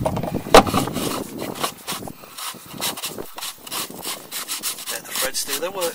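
Gloved hand screwing the oil filter housing cap back onto an Audi S3's filter housing by hand: irregular scratchy rubbing of glove and cap threads, loudest about half a second in.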